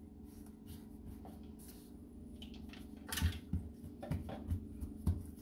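Hands gathering and pressing biscuit dough scraps together on a granite countertop: faint rustling, then from about three seconds in a series of soft thuds as the dough is patted down.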